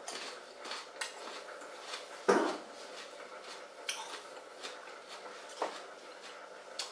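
Chewing a mouthful of raw celery stick: a handful of short, crisp crunches at irregular intervals, the loudest a little over two seconds in.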